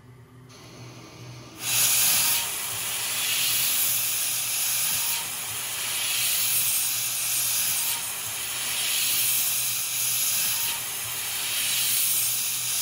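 Hardinge CNC lathe running a threading cycle on a stainless barrel tenon with an 18 TPI insert. A loud, even hiss starts abruptly about a second and a half in and swells and eases every few seconds as the passes repeat.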